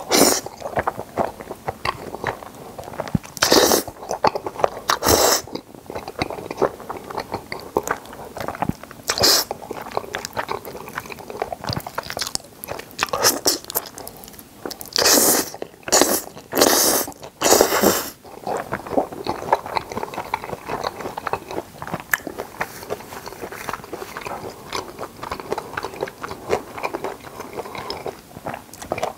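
Close-up slurping and wet chewing of creamy carbonara spaghetti with ham: steady mouth smacks and clicks, broken by several short loud slurps of noodles, four of them close together about halfway through.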